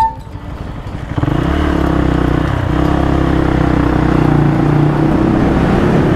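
Motorcycle engine running at low speed, picking up sharply about a second in as the bike accelerates from a crawl, then holding a steady engine note.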